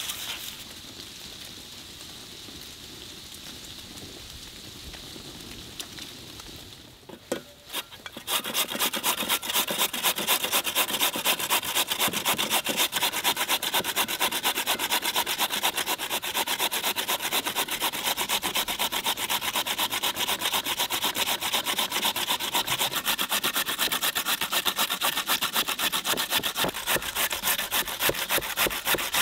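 Potato being grated on a metal box grater into an enamel bowl: rapid, steady rasping strokes that start about eight seconds in, after a quieter opening.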